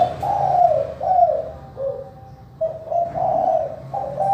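Spotted dove cooing: a phrase of falling coos, a short break about two seconds in, then the next phrase starting.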